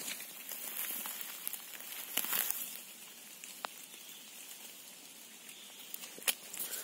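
Rustling and crackling of grass and dry leaf litter as a mushroom is picked by hand from the forest floor, with a few sharp snaps and clicks: a cluster about two seconds in and two more near the end.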